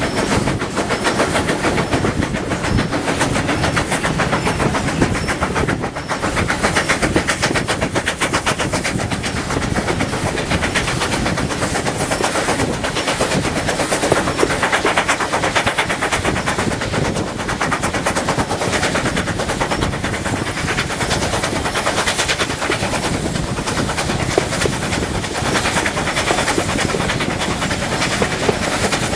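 A steam-hauled train running, heard from an open carriage window: rapid, steady exhaust beats from the steam locomotive mixed with the rumble and clatter of the carriage wheels on the rails, with a brief dip about six seconds in.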